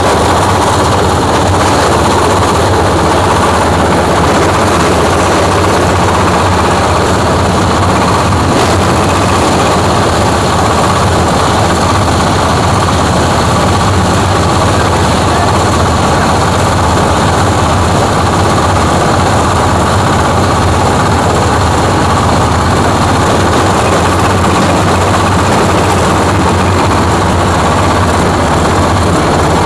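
Coconut-husk grinding machine (cocopeat grinder) running loud and steady: a dense, unbroken mechanical din over a low hum.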